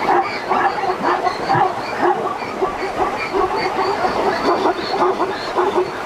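A herd of plains zebras calling, many short barking calls overlapping without a break.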